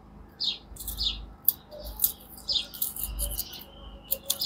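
Small birds chirping: repeated short, falling chirps, with sharper high chirps between them and a brief held note about three seconds in.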